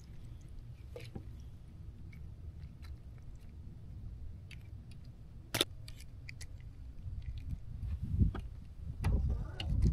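Wind rumbling on the microphone, with scattered small clicks and taps as a rod, reel and fish are handled. A sharp click comes about five and a half seconds in, and low thumps come in the last two seconds.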